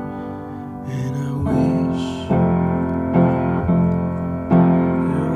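Background song music: piano chords played at a steady pace, a new chord struck roughly every second, with no singing.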